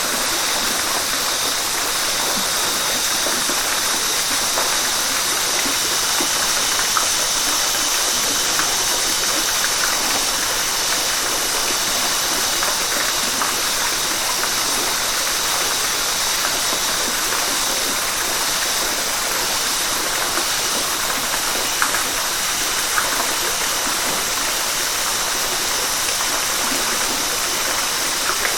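River water rushing steadily over rocks: an even, hissing flow with small brief splashes breaking through now and then.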